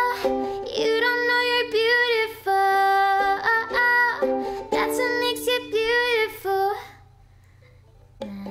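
Singing voice over a strummed ukulele, with long held, wavering sung notes; the song breaks off about seven seconds in. After a second or so of near silence the ukulele starts playing again near the end.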